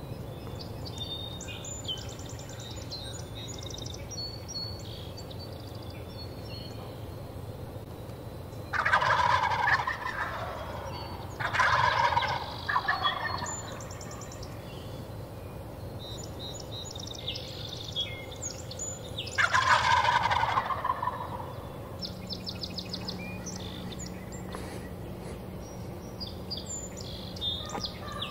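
Wild turkey gobblers gobbling: loud rattling gobbles about nine seconds in, again around twelve seconds, and once more around twenty seconds. Small songbirds chirp faintly in between.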